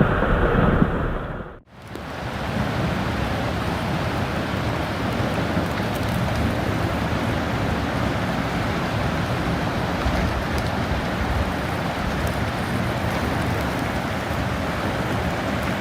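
Steady rushing noise of wind and water, starting just after an abrupt cut about a second and a half in. Before the cut, a dull rumble with no high end.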